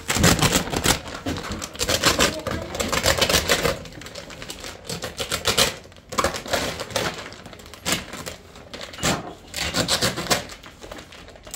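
Thin plastic bag liner crinkling as it is opened and handled, in repeated bursts of rapid crackling.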